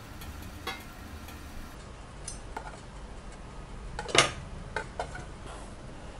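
A few light clinks and clicks of stainless steel kitchenware, the steamer tray and plate, as steamed kozhukattai are taken out; the loudest clink comes about four seconds in, over a faint low hum.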